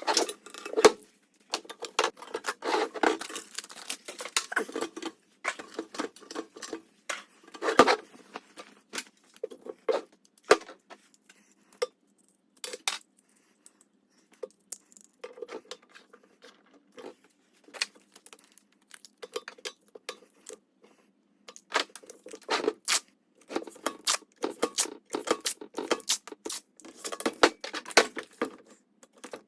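Irregular clicks, taps and clatter of small hard parts being handled, with a quieter stretch in the middle.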